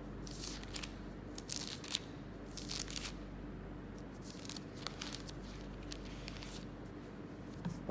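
Pages of a Bible being turned, paper rustling in several short spells over the first five seconds or so, over a steady low electrical hum.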